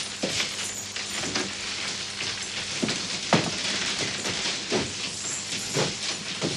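Footsteps of several men walking along a hallway: irregular heavy steps over a steady hiss with a low hum.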